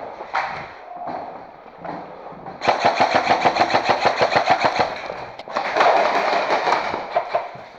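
Airsoft gun firing on full auto: a rapid burst of about ten shots a second, lasting nearly three seconds and starting a few seconds in, followed by a further stretch of noisier firing.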